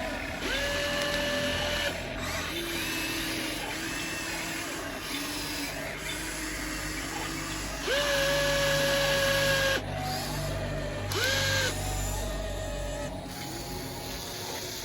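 Small electric motors of a radio-controlled model excavator whining as its arm and bucket move. The whines start and stop in short bursts, the longest about eight seconds in, starting with a quick rise in pitch as the motor spins up.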